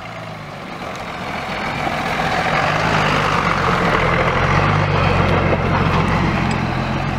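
Blue Bird bus engine running at a steady pace as the bus drives past close by, growing louder as it approaches and loudest about four to five seconds in as it passes.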